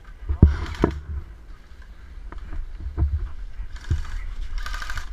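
Dull knocks of the camera rig and gear being bumped and handled. Near the end come two short bursts of rapid pops from an airsoft electric gun firing full-auto.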